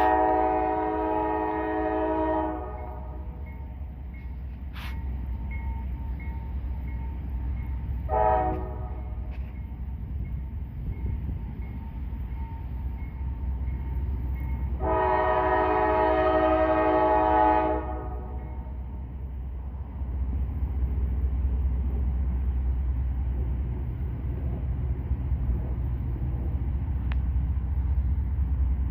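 Train horn sounding a chord of several notes in separate blasts: one dies away about two seconds in, a short blast comes about eight seconds in, and a longer one of about three seconds comes near the middle. A steady low rumble runs underneath.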